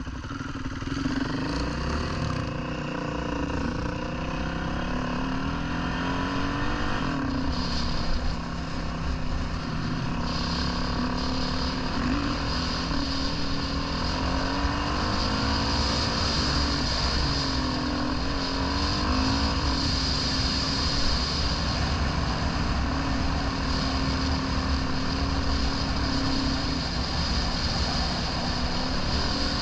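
Dirt bike engine running under way, its pitch rising and falling again and again as the throttle is worked and gears change, over a steady rush of wind.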